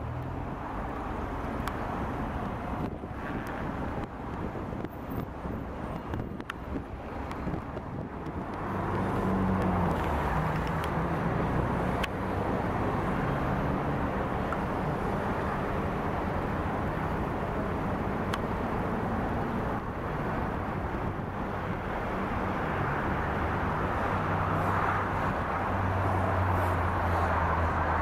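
Diesel engine of a crawler piling rig running with a steady hum, growing louder about nine seconds in and staying up; no hammer blows are heard.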